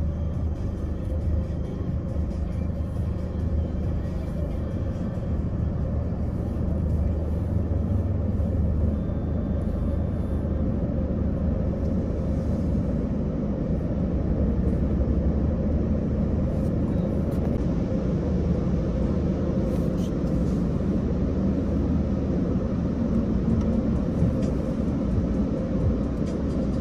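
Steady low rumble of a tunnel car wash's machinery and idling vehicles, heard from inside a waiting car.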